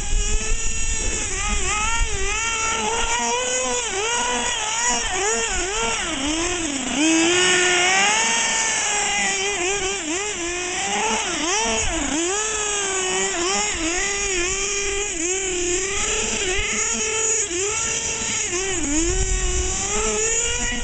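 Small nitro engine of a GS Storm RC buggy revving up and down constantly as it is driven, its high-pitched note swooping up and down every half second to a second. It gets a little louder about a third of the way in.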